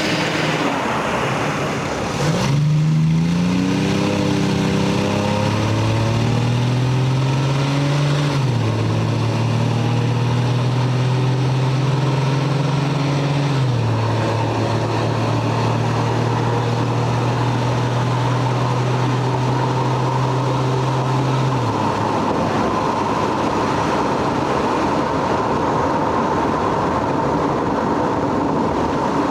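Lexus GS300's inline-six pulling away: its note climbs, then drops suddenly at two upshifts, about eight and fourteen seconds in, holding level in between. The engine note fades out a little past twenty seconds, leaving a steady rushing noise like road and tyre noise.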